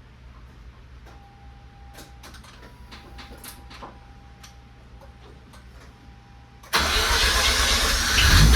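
Mazda RX-8's 13B two-rotor rotary engine starting up through a Racing Beat dual-resonator mid-pipe and race exhaust: faint clicks and a thin tone, then about seven seconds in the engine fires suddenly and catches, getting louder near the end. It starts readily on the newly installed lithium battery.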